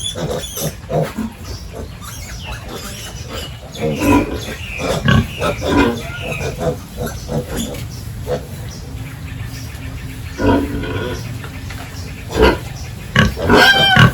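Several pigs grunting and squealing in short, irregular calls, with a loud, high-pitched squeal near the end.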